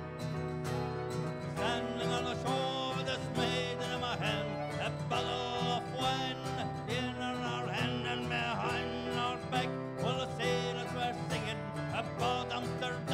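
A live folk band playing the instrumental opening of a song. Strummed acoustic guitar is in front, with accordion and keyboard, and a wavering lead melody comes in about two seconds in.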